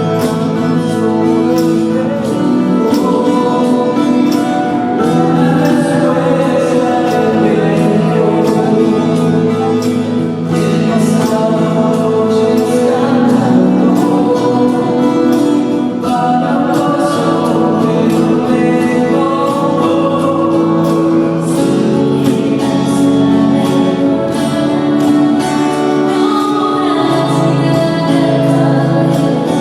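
Music with singing, with long held notes.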